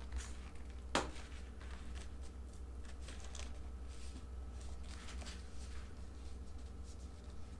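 Faint rustling and light taps of wallpaper being handled and pressed by hand onto wooden drawer fronts, with one sharper tap about a second in.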